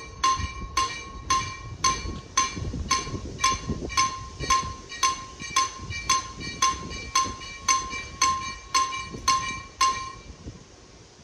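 Level crossing warning bell of an EHZ-13 crossing system, ringing in even strokes about twice a second and stopping about ten seconds in, with a low rumble underneath.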